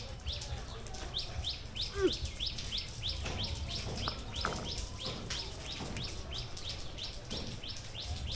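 A bird calling over and over, a quick regular run of short falling chirps about three or four a second. A brief falling cry about two seconds in is the loudest moment, over a steady low rumble.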